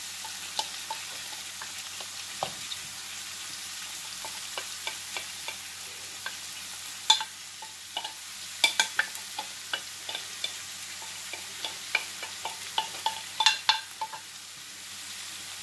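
Kefta (ground meat) frying in oil in a pan with onion and wet coriander just added: a steady sizzle, with scattered sharp clicks and taps from a wooden spoon scraping and stirring. The clicks come thicker in the second half.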